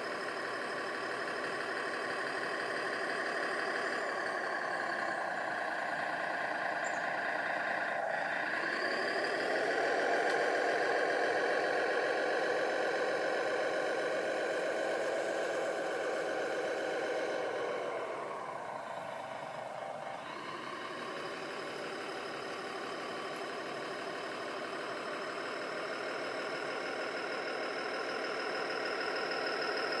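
Radio-controlled bulldozer running as it pushes stone dust: a steady mechanical whine with several pitched tones. It shifts in pitch and gets louder about eight seconds in, then drops back for a couple of seconds around eighteen seconds before building again.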